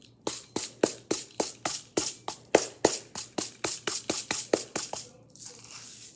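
A plastic shaker of rainbow sprinkles shaken hard over a dessert, the sprinkles rattling in quick, even strokes about four times a second for nearly five seconds, then a short, softer hiss near the end.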